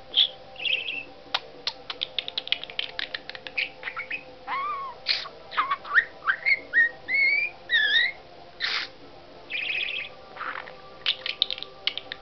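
Pet budgerigar chattering: quick clicks and chirps, then a string of short whistled notes sliding up and down, then a few harsh, screechy calls.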